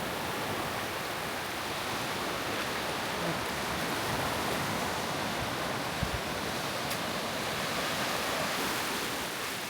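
Sea waves washing on a sandy shore as a steady hiss, with a brief soft knock about six seconds in.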